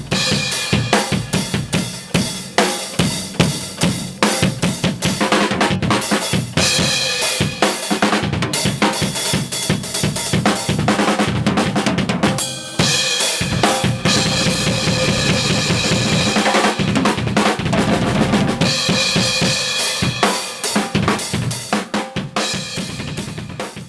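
Drum kit played in a fast, busy pattern: bass drum, snare and cymbals hit in quick succession, with a brief break about halfway through.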